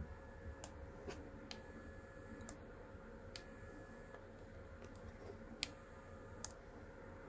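Sharp clicks of a vape box mod's fire button pressed and released in short pulses, dry-firing new coils at 140 watts to break them in and check for hot spots. A faint high tone holds between some press-and-release pairs.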